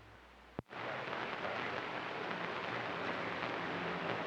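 CB radio receiver: a sharp click about half a second in as a station keys up, then a loud, harsh hiss of garbled audio over the channel. It sounds like someone holding the microphone up to a speaker and playing something through a narrow AM channel.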